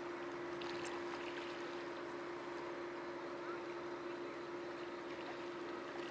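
A boat engine running steadily, a constant even drone.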